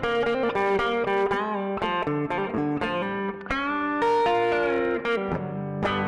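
Custom-built Telecaster-style electric guitar played with a clean tone, all controls at noon, through a preamp recorded direct: a quick run of picked single notes and short chords, with string bends about a second in and a fuller chord struck about three and a half seconds in.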